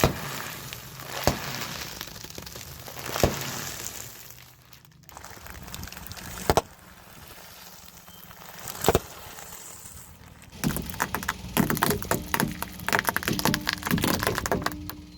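Crunchy objects cracking as a car tyre crushes them: single sharp cracks every couple of seconds, then a dense run of crackling and crunching from about ten seconds in.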